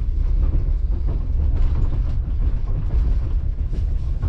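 Steady low rumble and rattle inside a moving passenger train carriage.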